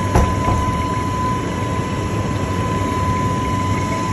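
Steady drone of running machinery with a thin, high, steady whine over it, and a single knock just after the start as the plastic control-board box is handled.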